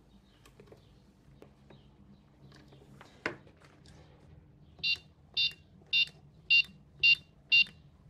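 Faint clicks and handling of a plastic case with one sharper click about three seconds in, then short, high electronic beeps from a fake bomb prop's keypad, about two a second, one for each digit pressed as the code is entered.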